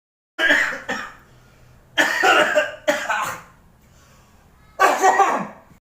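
A person coughing in four short bouts, some of them two coughs in quick succession, with brief pauses between.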